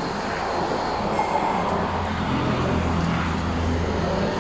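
Steady low rumble of motor vehicle traffic, swelling a little about two seconds in.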